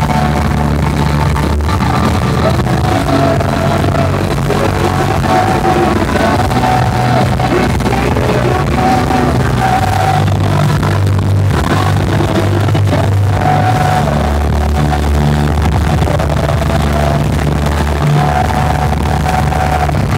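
Live worship band music in an arena, heard from among the audience: held chords over a steady deep bass.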